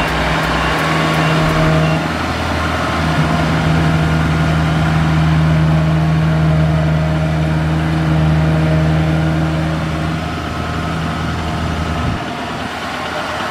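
Engine of a rice-harvesting machine running steadily at an even pitch, dropping away about twelve seconds in.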